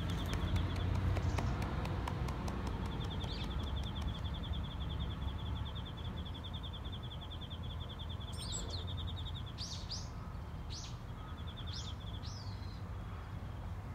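Outdoor birdsong: a high, rapidly pulsed trill that stops and starts, joined about eight seconds in by several short, sharp chirps, over a steady low background rumble.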